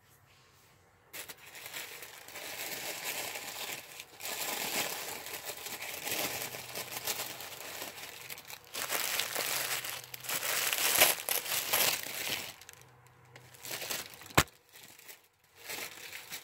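Paper or plastic wrapping crinkling and tearing as a gift is pulled open by hand, in uneven bursts that start about a second in. A single sharp click near the end.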